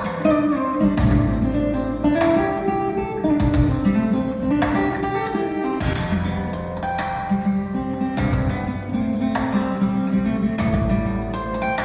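Recorded guitar music, plucked melody over deep bass notes, played through KEF LS50 Meta bookshelf speakers and picked up by a phone microphone in the room.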